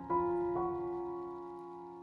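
Background piano music: a soft chord struck at the start and another about half a second in, held and slowly fading.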